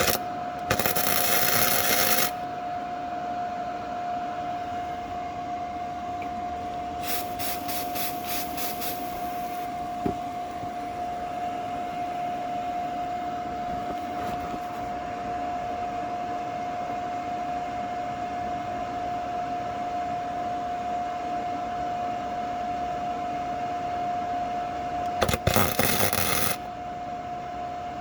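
100-volt welder arcing on a steel car frame in three short bursts of crackling buzz: one near the start, a longer one about seven seconds in, and a brief one near the end, with a steady high whine throughout.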